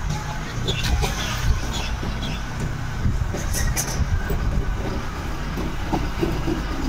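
Street ambience heard while walking: a steady low rumble of road traffic, with a few brief clicks.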